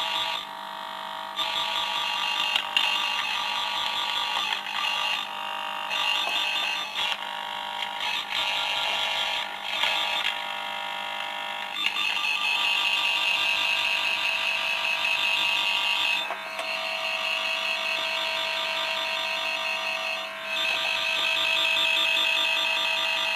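Cable tracer probe's speaker giving out the warbling tone of a signal generator as the probe is run along a multi-core cable to find a broken conductor. The tone is choppy and uneven at first and steadier and stronger from about halfway, changing character again a couple of times as the probe passes different wires.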